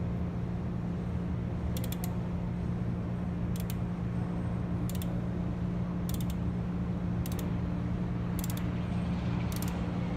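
Ratchet wrench clicking in short runs about once a second as it drives a thread tap into a stripped bolt hole, over a steady low hum.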